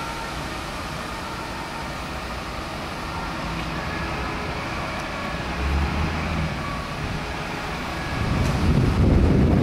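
Fire engines' diesel engines running as the trucks drive out, with faint snatches of a siren. The engine rumble swells about two-thirds of the way through, and near the end wind buffets the microphone.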